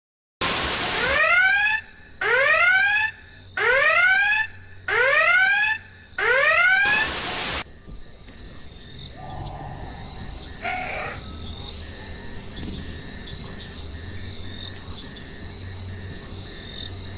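Electronic whooping alarm: five rising whoop tones about a second apart, set between two short bursts of static. A steady hiss follows.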